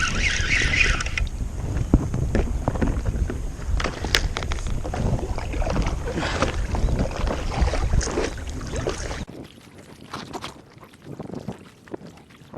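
Wind buffeting the microphone, with water knocking against a small boat's hull, that drops away suddenly about nine seconds in.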